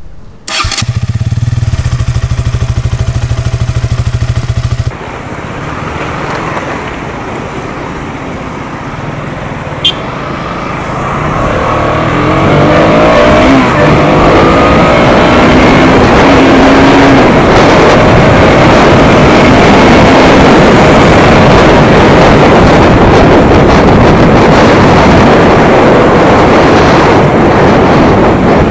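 KTM Duke single-cylinder motorcycle engine. It first runs at a steady note that breaks off abruptly about five seconds in. The engine then pulls away, its pitch rising through the gears, and settles into a loud steady rush of engine and wind at road speed.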